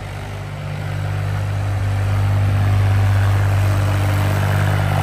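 Mahindra 265 tractor's three-cylinder diesel engine running steadily under load while it pulls a rotavator through wet soil in second gear low range. The sound grows louder between about one and three seconds in as the tractor comes closer.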